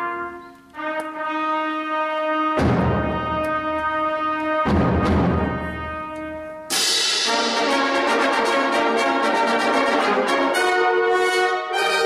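Concert wind band playing: held brass chords, with two loud percussion crashes about two and a half and four and a half seconds in. About seven seconds in, the full band comes in louder with busy moving parts.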